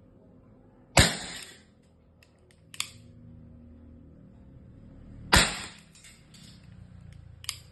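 Two shots from a 733 hybrid airsoft revolver firing lead pellets, about four seconds apart, each a sharp crack with a short ringing tail. Lighter clicks come between and after the shots.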